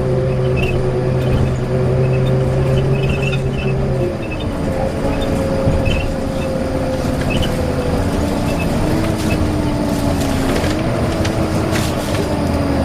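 Volvo B9TL double-decker bus running with its loud whine over the engine. About four seconds in, the whine falls in pitch, then wavers up and down as the bus changes speed.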